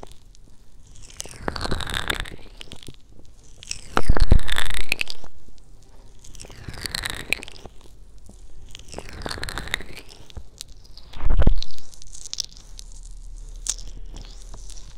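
Hands rubbing and sweeping over a binaural microphone's silicone ears: close swishing that swells and fades about every two and a half seconds. Two loud muffled thumps, from a hand pressing over an ear, come near four seconds in and again near eleven.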